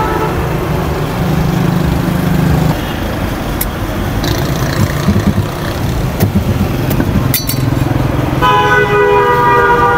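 Roadside traffic with vehicle engines running steadily, a few sharp clicks, and a vehicle horn held for about a second and a half near the end.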